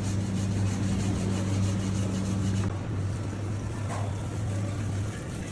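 A power tool's motor running with a steady hum, as when a wire brush is used to clean a suspension arm. Its sound changes about two and a half seconds in, when the higher part of the hum drops out.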